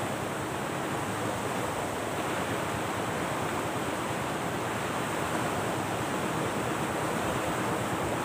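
Steady rushing noise of surf on the shore.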